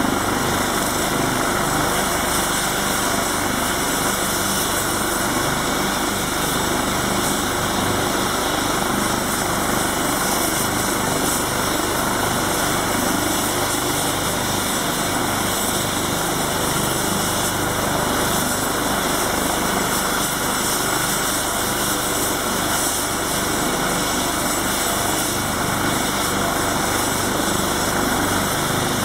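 AgustaWestland AW139 helicopter running on the ground, its twin turboshaft engines and main rotor turning steadily at a constant pitch.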